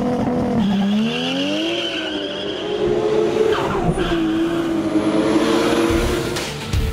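A car drifting: its engine revving up and down while the tyres squeal and skid on the tarmac, the squeal strongest in the first two seconds or so.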